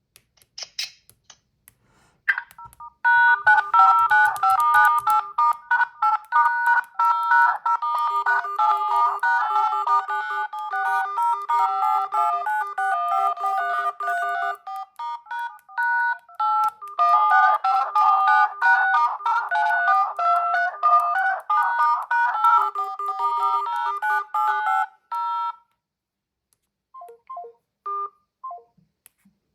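A smartphone's incoming-call ringtone: a melody of quick, bright electronic notes that starts about two seconds in and plays for over twenty seconds with a short break about halfway. It stops, and a few faint short notes follow near the end.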